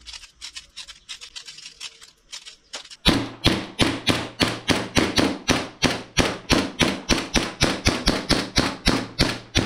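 G&G GPM1911 gas blowback airsoft pistol being fired. Fainter clicks come first, then from about three seconds in a fast, even string of shots, each with the slide's blowback, about four a second.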